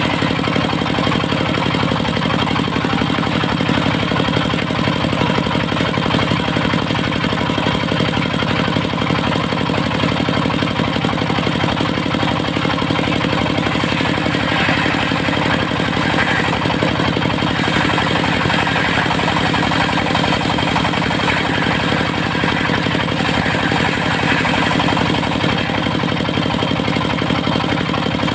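Diesel engine of a mobile circular sawmill running steadily at constant speed, with a rough hiss that swells now and then in the second half.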